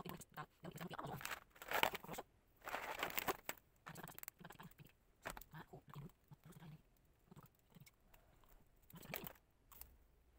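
Close handling of small perfume atomizers and their packaging: irregular clicks, taps and rustling, with a louder rustle about two seconds in and another lasting about a second just after.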